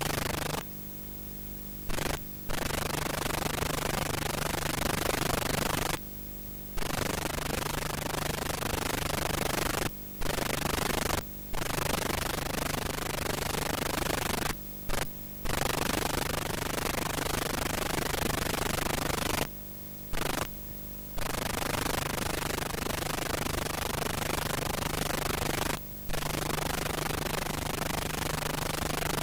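Steady static hiss with a low hum beneath it. About ten times the hiss briefly cuts out for a fraction of a second to a second, then returns.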